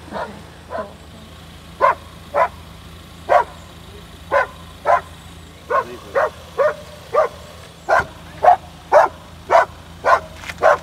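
A Belgian Malinois barking over and over in single sharp barks. They come about one a second at first and quicken to about two a second in the last few seconds.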